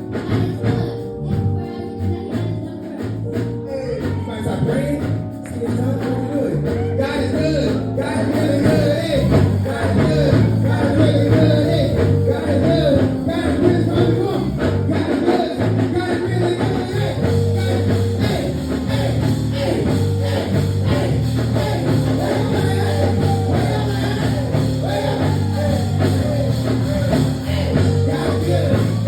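Band music with a steady bass line and guitar, with singing over it.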